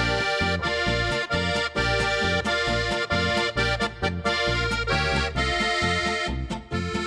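Instrumental accordion-led folk music with a steady, bouncing bass beat and no singing.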